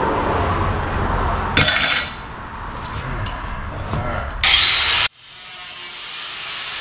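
Two short bursts of an angle grinder with a cut-off wheel biting into the sheet-metal body to open a hole for a side-dump exhaust. The second burst is louder and longer, and cuts off suddenly about five seconds in.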